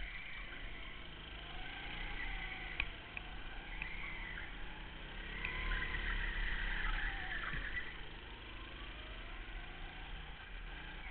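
Go-kart engine heard from on board the kart, its pitch rising and falling as it slows for corners and speeds up again, loudest around the middle, with a sharp knock a little under three seconds in.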